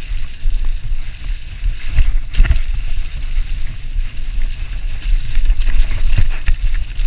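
Mountain bike riding fast down a leaf-covered dirt trail: a steady, fluttering low rumble of wind on the microphone mixed with tyre noise. Sharp knocks come from the bike jolting over bumps about two seconds in and again near the end.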